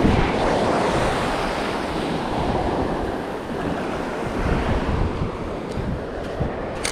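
Small surf breaking and washing up the sand at the water's edge, with wind buffeting the microphone. A short sharp click comes near the end.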